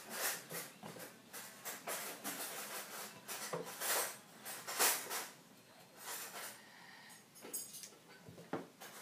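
Graphite pencil scratching across paper in short, irregular strokes as a line drawing is sketched, with a few louder strokes scattered through.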